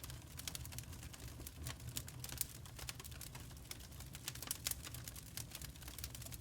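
Birch firewood burning, crackling with many irregular sharp pops over a steady low rumble.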